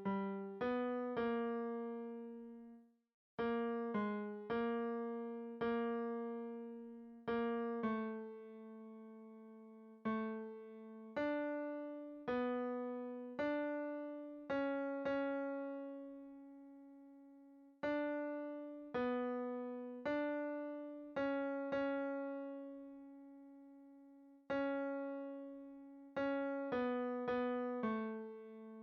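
Piano sound playing a single melody line one note at a time, the tenor voice part of a choral piece for rehearsal. Each note is struck and dies away, with a short silent gap about three seconds in.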